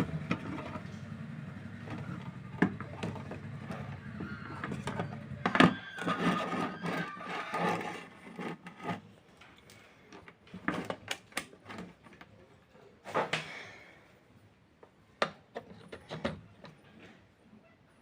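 Clicks and knocks of handling the opened CRT TV's circuit board and power lead, then a run of sharp spaced ticks: the tik-tik of the TV's power supply starting and cutting out over and over, its 110 V line coming and going, a fault the repairer traces to a faulty output transistor.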